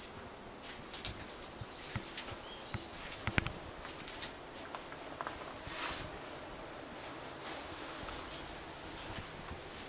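Someone moving about inside a small wooden hut: scattered soft footsteps, light knocks and rustling, with a sharper double knock about three and a half seconds in and a brief swish near six seconds.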